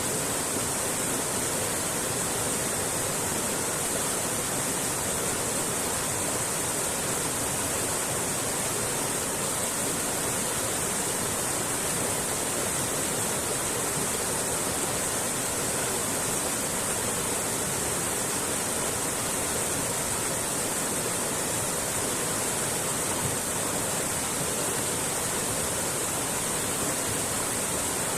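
Mountain creek flowing: a steady, even rush of water with a bright hiss, unchanging throughout.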